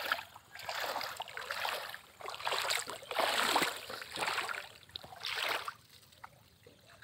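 Shallow water splashing and sloshing in a series of bursts, about one a second, as bare feet kick and wade through it; it dies down near the end.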